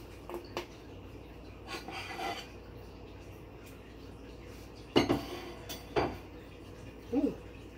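Dishes and cutlery being handled: light clicks and a scraping rub, then two sharp clatters about five and six seconds in, and a brief pitched sound near the end.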